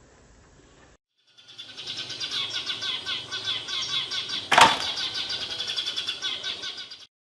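A crowd of small birds chirping and fluttering their wings at close range, with one sharp click about halfway through. The sound starts about a second in and cuts off suddenly near the end.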